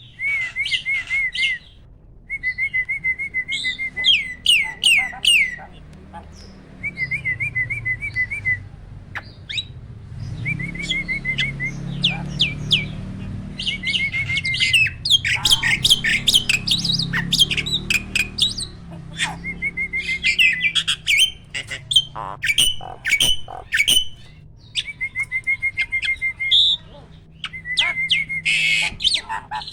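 A jalak starling singing. Short warbling trills alternate again and again with rapid volleys of sharp, loud, quickly falling whistled notes: the 'tembakan' bursts that keepers prize in a contest bird.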